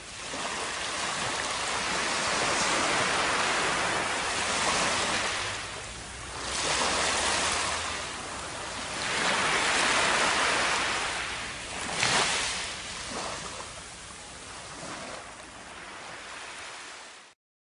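Small waves washing up on a sandy beach, the surf rising and falling in about four surges, then cutting off abruptly near the end.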